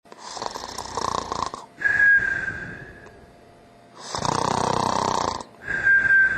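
Exaggerated fake snoring by a man: two rasping snores on the in-breath, each followed by a high whistle on the out-breath that falls slightly and fades, a cartoon-style snore.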